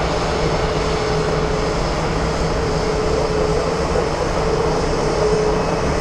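Airbus A350-900's Rolls-Royce Trent XWB turbofans on final approach: a steady jet drone with a low hum and a whine held at one pitch.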